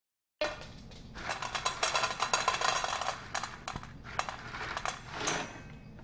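Kitchen clatter of dishes and utensils: a busy run of small clicks and clinks, densest in the first half, with a sharper clatter near the end.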